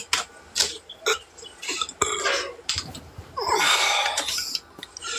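A person burping: a few short burps, then a longer one about three and a half seconds in.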